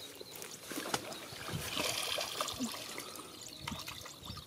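Shallow muddy pond water sloshing and trickling, with small splashes, as people wade and grope through it by hand.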